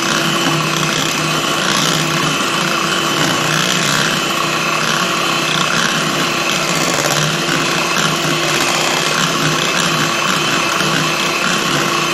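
Electric hand mixer running at a steady speed, its beaters whisking a runny egg-and-sugar cake batter in a bowl; the motor gives a constant whine over the churning of the batter.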